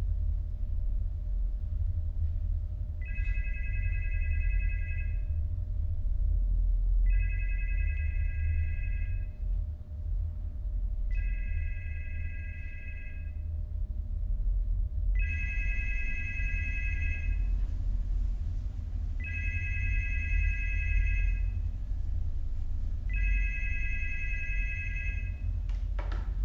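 Landline desk telephone ringing six times with an electronic ring, each ring about two seconds long and about four seconds apart, over a steady low rumble. Near the end the receiver is lifted with a click.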